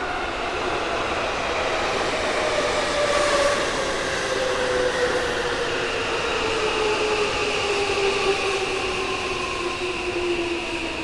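Another electric train pulling into the station alongside, braking. Its traction motors whine in several tones that fall slowly and steadily in pitch as it slows, over the rumble of its wheels on the rails.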